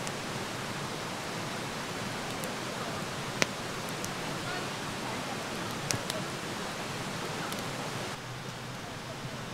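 Wood fire burning in a small fire-pit brazier: a steady rushing hiss with occasional sharp crackling pops, the loudest about three and a half seconds in and a pair near six seconds.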